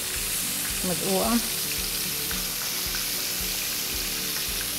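Hot oil frying with a steady sizzle.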